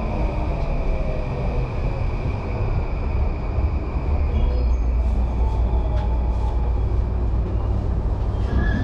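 JR Yamanote Line electric train heard from inside the carriage as it slows: a steady low rumble of wheels on rail with a faint tone falling in pitch in the first couple of seconds.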